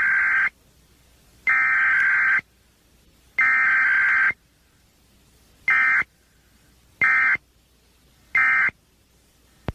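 Emergency Alert System (SAME) digital data bursts broadcast over the radio for an EAS test. There are three long bursts of about a second each, one after another, then three short bursts spaced more than a second apart.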